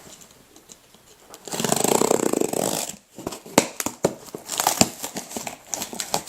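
Packing tape ripping on a sealed cardboard case: one harsh, buzzing rip lasting about a second and a half, starting about a second and a half in. It is followed by scattered clicks and rustles of the cardboard being handled.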